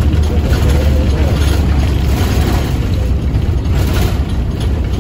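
Steady low rumble of engine and road noise, heard from inside a moving road vehicle.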